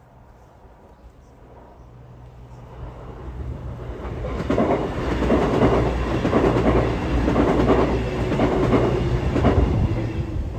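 A train passing over a level crossing: it builds up over the first few seconds, then its wheels clatter in a quick rhythm over the rail joints at full loudness, with a low steady hum beneath, easing off near the end.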